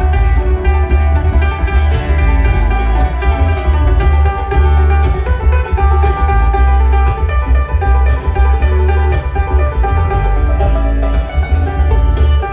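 Bluegrass string band playing an instrumental break live: banjo picking over acoustic guitar, mandolin and upright bass, with the bass heavy in the low end.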